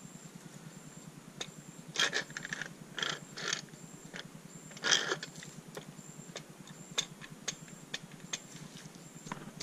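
Aluminium engine casting and the loose bolts in it clinking and knocking as it is handled and turned over, in a few short clatters and single sharp ticks.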